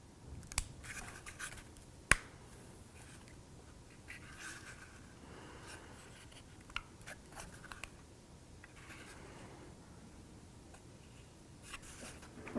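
Faint handling of laser-cut kit pieces being fitted together: light scraping and rubbing in short spells, with a few sharp clicks, the loudest about two seconds in.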